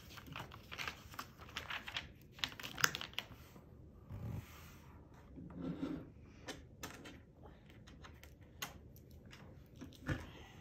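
LEGO plastic bricks clicking and rattling as they are pressed onto a model and handled, a quick irregular run of small sharp clicks and taps with a duller knock about four seconds in and another near the end.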